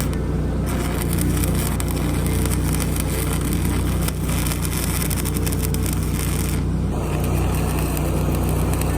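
Welder's engine running steadily under the crackle of arc welding on steel, with short breaks in the arc about four and seven seconds in.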